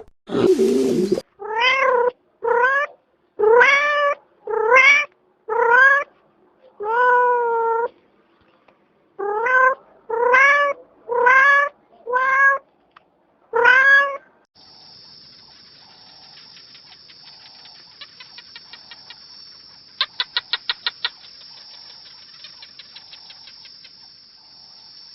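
A cat meowing about a dozen times in short calls, each rising then falling in pitch. About halfway through, the meows stop and a steady high-pitched buzz with rapid clicking takes over.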